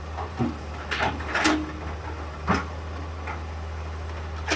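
Demolition machinery running with a steady low hum, with several sharp knocks and clanks over it, about four in all.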